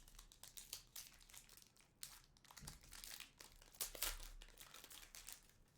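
Card packaging crinkling and rustling in the hands as the last pack, holding the metal bar card, is opened, in faint irregular crackles that grow a little louder about midway.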